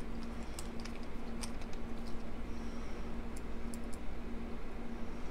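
Light, scattered clicks and ticks of a small driver and metal knife parts being handled while a folding knife is unscrewed and taken apart, over a steady low hum.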